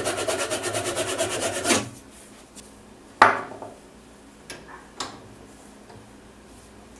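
Maple workpiece spinning on a wood lathe with a hand-held tool rubbing on it: a rhythmic rasping that stops abruptly just under two seconds in. Then a sharp knock and two lighter clicks as the metal drill chuck and tailstock are handled.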